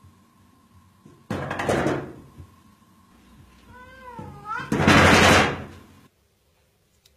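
A cat meows once, a short wavering call, between a dull knock about a second in and a louder, rough noisy burst lasting over a second that follows right after the meow. The sound cuts off abruptly near the end.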